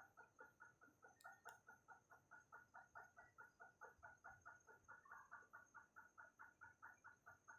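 Faint, even run of short animal calls, about four to five a second, over a faint steady high-pitched whine.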